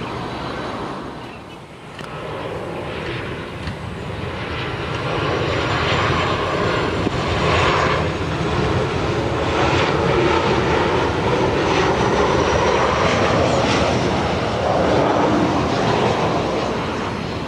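Jet engines of airliners on final approach: an Airbus A320 briefly, then after a cut a Boeing 737-800 passing low overhead. A steady jet rush with a faint high whine, growing louder from about six seconds in.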